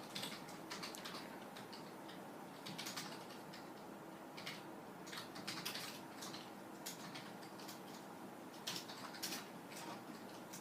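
Irregular light clicks and taps from a quail moving about on a hard surface, coming in loose clusters, over a faint steady hiss.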